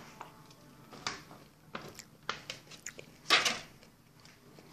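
Diced tomatoes being scraped out of a plastic bowl and dropped onto chopped vegetables in a glass salad bowl: a few soft, wet squelches and rustles, the loudest about three seconds in.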